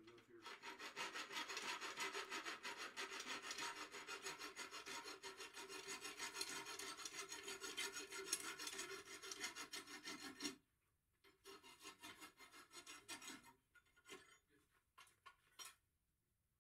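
A hand file rasping on a red-hot steel bar, in quick, steady back-and-forth strokes, cutting on both strokes as a file does on hot steel. The strokes stop abruptly about ten seconds in, then a few lighter, scattered strokes follow.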